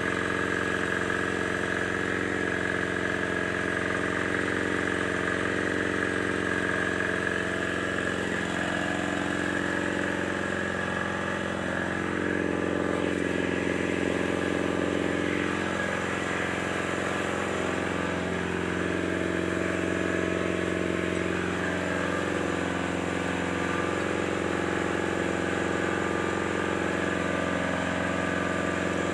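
Excavator diesel engine running steadily, its pitch shifting slightly up and down for a stretch in the middle.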